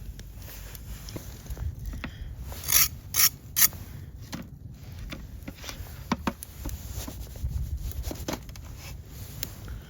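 Three short, sharp scrapes in quick succession about three seconds in, with scattered clicks and knocks, over a low rumble like wind on the microphone.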